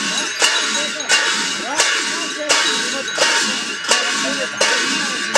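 Metal cymbals clashed in a steady beat, about three strikes every two seconds, each clash ringing on into the next, keeping time for a Rai ritual dance.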